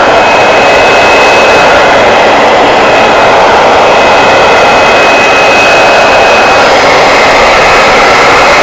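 Hand-held hair dryer running: a loud, steady rush of blown air with a faint high whine from its motor.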